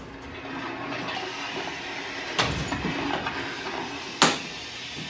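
Steady rushing hiss from an aircraft cabin door trainer as the emergency exit door is opened in an evacuation drill, with two sharp knocks about two and a half and four seconds in.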